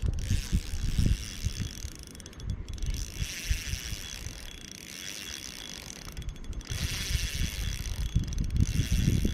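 Small spinning reel's drag clicking and paying out line under a fish's pull, the drag set loose on light line. Low rumbling thumps run underneath.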